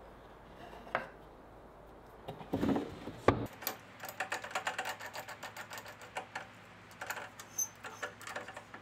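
Setting up a drill press: a couple of knocks, then from about three and a half seconds in a quick, uneven run of small clicks and rattles from the machine being adjusted.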